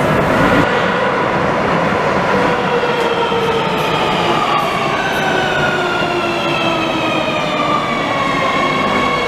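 Madrid Metro train moving along the platform: a steady rumble of the wheels on the rails under an electric whine in several tones that slowly falls in pitch.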